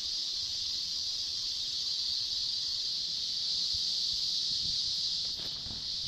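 A steady, high-pitched chorus of night insects droning without a break.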